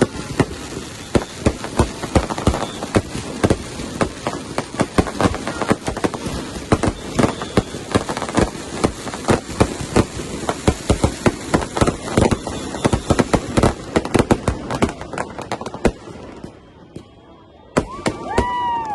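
Fireworks and firecrackers going off in rapid, dense succession, a continuous run of cracks and bangs. They thin out and go quieter about three seconds before the end, then pick up again just before it.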